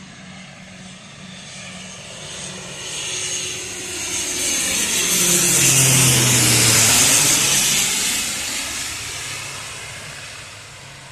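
CASA C-295 twin-turboprop transport flying past: the engine and propeller sound builds to a loud peak about six seconds in, the propeller tone drops in pitch as it passes, then fades away.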